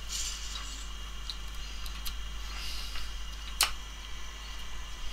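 Handling noise on a workbench: light rustling and small clinks as a gloved hand reaches across, with one sharp click a little past halfway.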